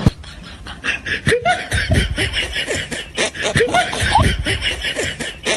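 Several people laughing, a run of short snickers and chuckles overlapping one another.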